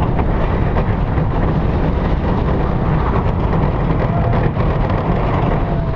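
Goliath, an Intamin steel hyper coaster, running its train along the track, heard from on board: a loud, steady rumble of the wheels on the steel rails mixed with wind rushing over the camera's microphone.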